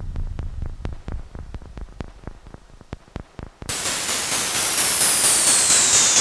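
Synthesised spacecraft-landing sound effect. A low rumble dies away under irregular clicks, then about two-thirds of the way through a loud hiss cuts in suddenly, pulsing about twice a second, with a high whine falling steadily in pitch.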